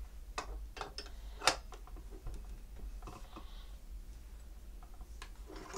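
Scattered metal clicks and taps of a wrench on a fitting of a pancake air compressor as it is tightened, irregularly spaced, the loudest about one and a half seconds in.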